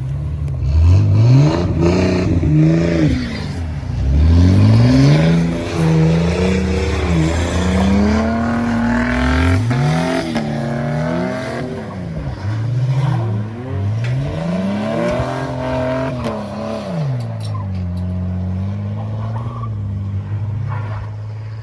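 Car engine revved over and over, its pitch climbing and falling back each time above a steady idle, and settling back to idle near the end.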